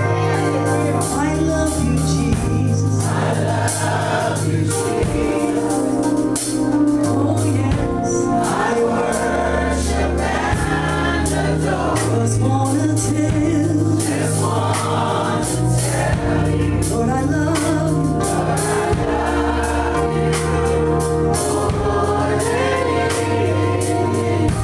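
Live gospel song: a woman's voice leads into a microphone with other voices singing along, over sustained organ chords and a steady bass line.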